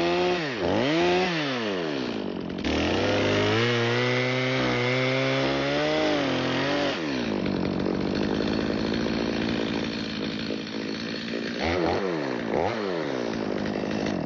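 Stihl MS 250 two-stroke chainsaw sawing through a log, its engine pitch dipping and rising several times as the throttle is worked and the chain bites. The saw cuts off suddenly at the end.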